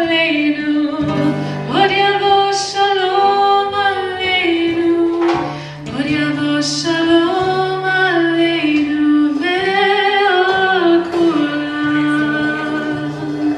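Live song: a woman singing long held notes over guitar accompaniment.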